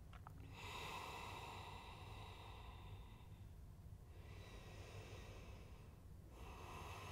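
A person's slow, deep breaths, faint: one long breath from about half a second in lasting nearly three seconds, another from about four seconds, and a third near the end, over a low steady hum.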